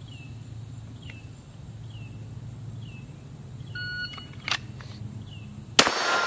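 A shot timer's start beep about four seconds in, then about two seconds later a single sharp shot from a Glock 44 .22 LR pistol drawn from the holster, with the steel target ringing after it. A faint short chirp repeats about once a second.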